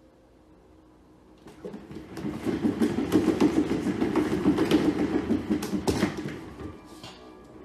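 Cat exercise wheel spinning as a cat runs in it: a fast rattling rush that builds up over about a second, stays loud for about four seconds, then fades away as the wheel slows.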